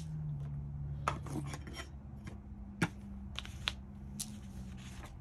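Paper pattern and knit fabric being handled and smoothed on a cutting mat: soft rustling with a few short, sharp clicks, over a steady low hum.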